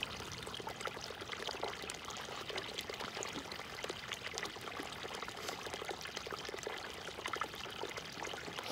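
Water pouring and splashing steadily as a plastic water jug is filled.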